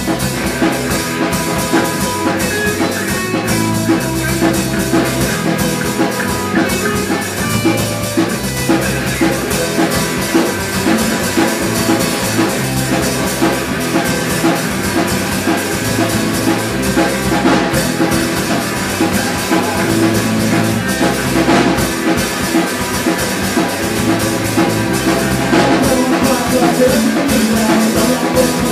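Live rock band playing with drum kit and electric guitars through small amplifiers, the drums keeping a steady beat.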